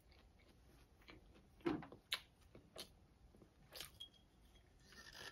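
Faint, scattered clicks and small mouth noises of chewing, then a glass soda bottle being handled and its cap worked at near the end, a brief scraping noise, without opening it.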